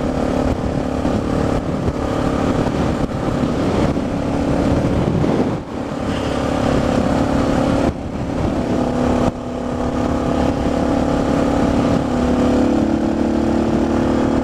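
Suzuki DR650's single-cylinder four-stroke engine running at road speed, heard through a helmet camera with wind rush. The engine note dips briefly a few times, then steps up in pitch near the end as the throttle is rolled on.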